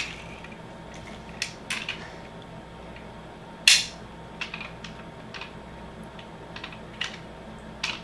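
Scattered small clicks and clinks of a diecast metal toy car being handled, about half a dozen, the loudest a little over three and a half seconds in.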